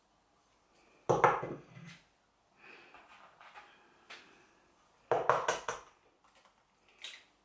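Eggs tapped against the rim of a mixing bowl and cracked open: a cluster of sharp knocks about a second in and another about five seconds in, with softer handling noise between.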